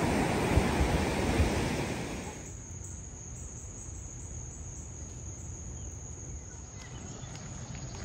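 Surf washing on the shore with wind on the microphone, then, about two seconds in, an abrupt change to a steady high-pitched insect drone over a faint low rumble.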